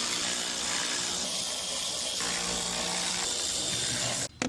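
Electric power tool motor running steadily under light load while the air filter housing is taken apart, then cutting off suddenly near the end.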